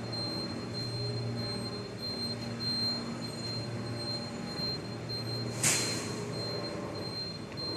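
Steady hum of a rubber-mat moulding press and its machinery, with a thin high whine running through it. A brief sharp hiss comes about five and a half seconds in.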